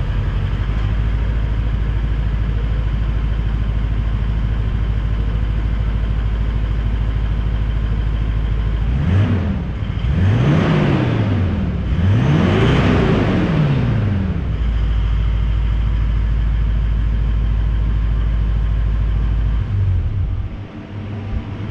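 Toyota LandCruiser 200 Series V8 diesel idling, heard at the exhaust outlet, blipped up in revs a few times around the middle and settling back to a steady idle. The idle drone drops away shortly before the end.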